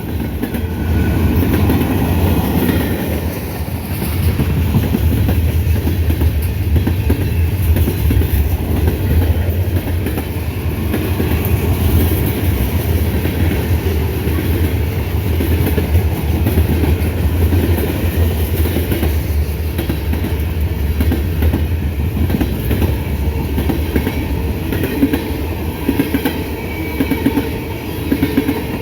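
Freight cars of a mixed manifest train rolling steadily past, steel wheels clattering over the rail joints with a deep rumble underneath.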